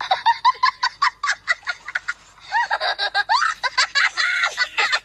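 Talking parakeet calling in a rapid string of short high notes, about five a second, for the first two seconds, then a run of longer notes that bend up and down in pitch.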